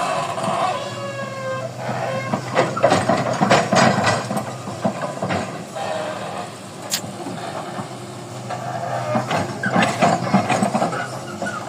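Diesel engine of a heavy construction machine running steadily under work, with metallic clanks and squeals from the machine several times.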